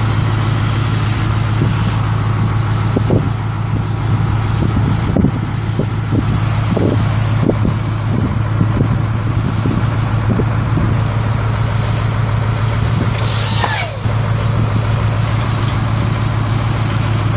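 The International D190 eight-cylinder diesel in a 1987 International S1700 truck idles steadily, with scattered light clicks and knocks over it. A short hiss comes about 13 seconds in.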